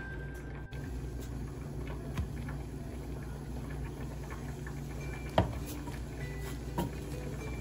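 Wooden spoon stirring oats and milk in a stainless steel pot, with scattered light knocks of the spoon against the pan, the sharpest about five and a half seconds in, over a steady low hum.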